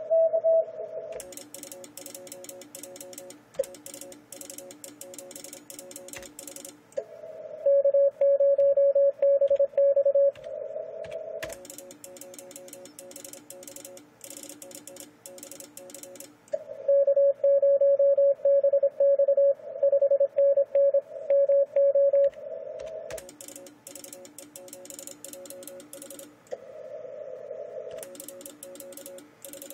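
Morse code (CW) tones from an Icom IC-756PROIII transceiver, heard through a phone recording: two long stretches of loud keyed tone at one pitch, and quieter Morse at several lower pitches in between. In the quieter stretches, fast clicking of a computer keyboard as calls are typed into the contest log.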